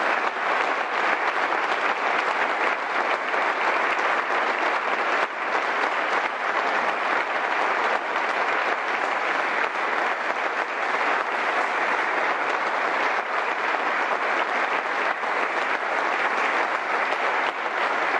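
Long, steady applause from a seated audience clapping their hands.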